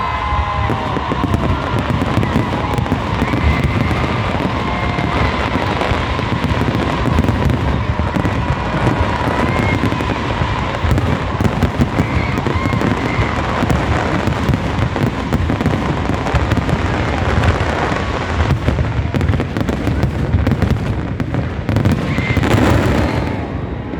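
Fireworks barrage: a continuous dense crackle of many bangs and pops going off together, with a few whistling rockets in the first several seconds.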